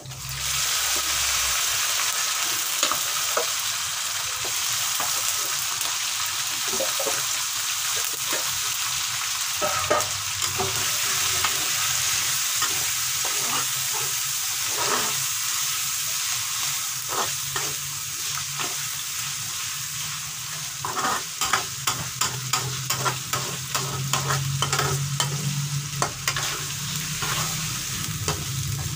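Food sizzling in hot oil in a pan while a spatula stirs it, with steady frying hiss and repeated scraping and knocking strokes that come thicker toward the end. The pan holds the spice paste and aromatics for a mie ayam chicken topping.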